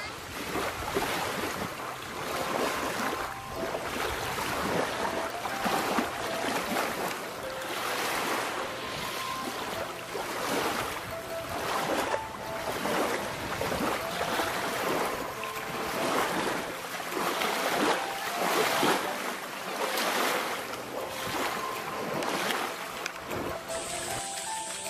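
Small lake waves lapping and washing over a pebble shore, swelling every second or two, with wind on the microphone.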